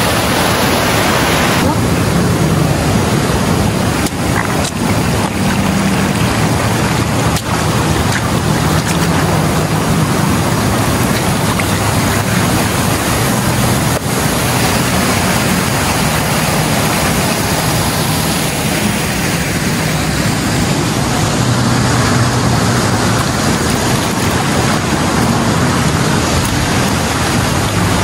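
Steady, loud rushing of flowing water from a river and small waterfall.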